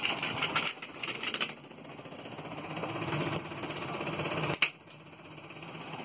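Lasko box fan's spinning blades rapidly knocking and rattling against an object jammed in the grille as it is being wrecked. The knocking grows steadily louder, breaks off with a sharp snap about four and a half seconds in, then builds again.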